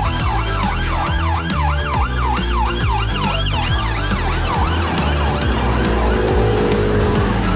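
Police car siren in a fast yelp, sweeping up and down about three times a second, fading out about halfway through. Background music with a steady beat plays underneath.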